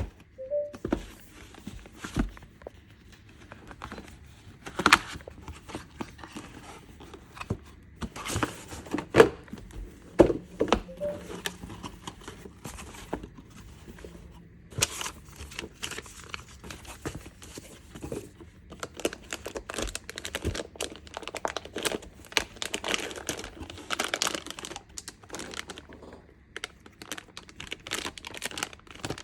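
Hands handling hardware and its packaging: irregular plastic crinkling and rustling, with scattered clicks and knocks, in a small room.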